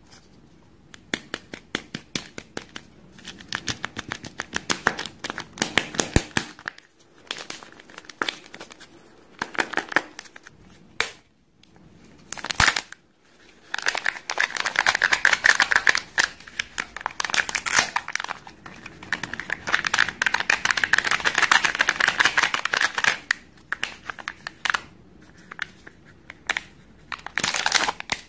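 Foil wrapper of a Kinder Joy egg crinkling and tearing as it is peeled off by hand, in bursts of crackling with short pauses between, busiest about midway and again a little later.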